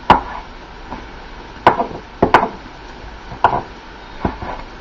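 Large kitchen knife slicing fried pork into thin strips on a wooden cutting board. About six irregular, sharp knocks of the blade striking the wood.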